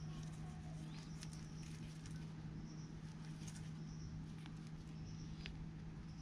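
Cloth rag rubbing and polishing a small part of a motorcycle's front brake-light switch by hand: faint scratchy rubbing with a few small clicks, over a steady low hum.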